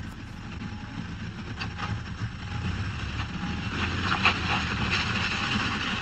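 Car engine running with a steady low rumble that grows gradually louder, with a few faint knocks.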